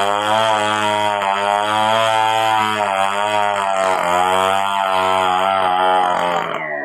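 Stihl 070 two-stroke chainsaw running at full throttle under load, ripping lengthwise through a log, its steady drone wavering slightly as the chain bites. Near the end the throttle is released and the engine note falls.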